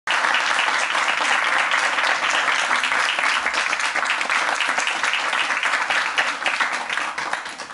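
Audience applauding, a dense, steady clapping that begins to taper off near the end.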